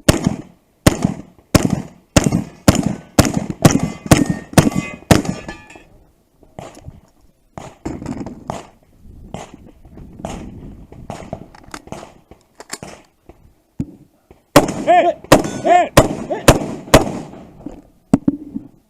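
Rapid gunfire: a string of about eleven shots roughly half a second apart, then a few seconds of quieter, scattered shots, then another run of loud shots near the end, several followed by a short ringing tone.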